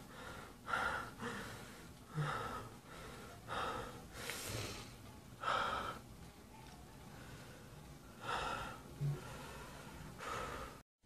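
A man breathing hard in sobbing gasps, about nine breaths at uneven intervals: acted weeping. The sound cuts off abruptly near the end.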